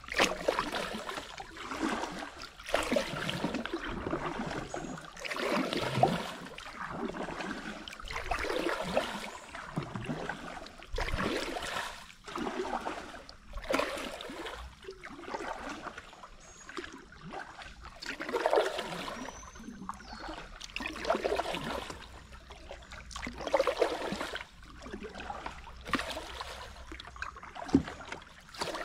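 Kayak paddle strokes: water swishing and dripping off the paddle blades in a steady rhythm, a stroke every two to three seconds.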